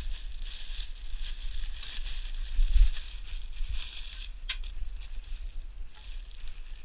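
Plastic wrapping rustling and crinkling as it is handled, over a gusty rumble of wind on the microphone, with one sharp click about two-thirds of the way through.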